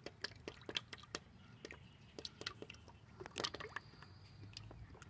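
Motor oil poured from a plastic quart bottle into an oil pump's hopper: faint, irregular glugging, squishing and clicking of liquid and plastic.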